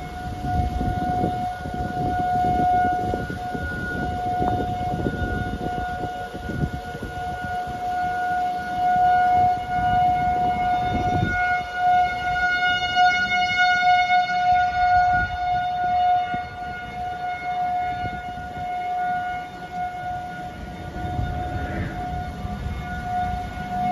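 Outdoor tornado warning siren wailing on one steady pitch, with low rumbling gusts of wind on the microphone.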